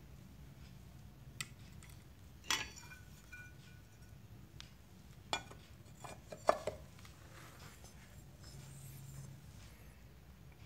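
Metal moped clutch parts being handled, giving four or five sharp metallic clinks; one a little over two seconds in rings on briefly, and the loudest comes about six and a half seconds in.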